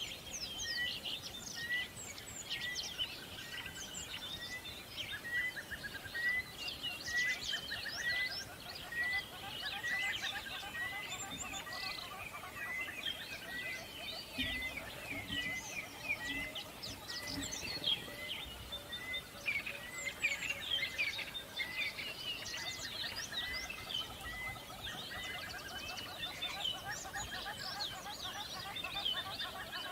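Many small birds chirping and singing together, with one bird repeating a short note about twice a second through most of it.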